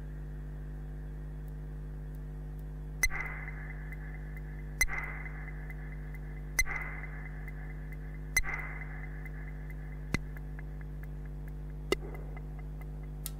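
Electronic synthesizer drone: several steady low tones held together over a constant hum and hiss of signal noise, which comes from a Roland TR-6S drum machine run through a Big Muff Pi fuzz pedal. About three seconds in, four evenly spaced percussive hits sound a little under two seconds apart, each with a short ringing tail. Two sharper single clicks follow near the end.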